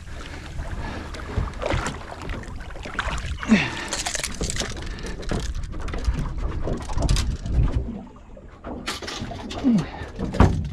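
Water lapping and sloshing against a small boat's hull as it rocks on the swell, with a few knocks near the end.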